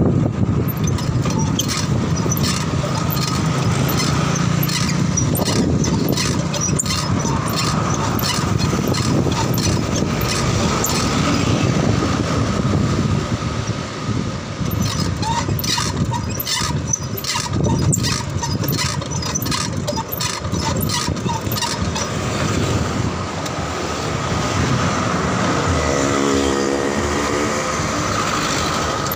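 Road traffic and wind rushing on the microphone, heard from a moving bicycle, with frequent sharp clicks and rattles. Near the end a truck's engine runs close alongside.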